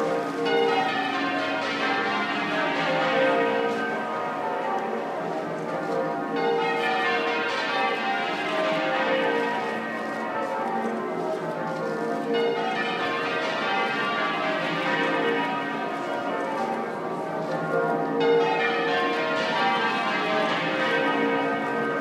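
St Paul's Cathedral's ring of twelve Taylor bells, tenor about 62 cwt in B flat, change ringing half-muffled for a funeral. Each run of strokes sweeps down from the highest bells to the lowest and repeats about every six seconds.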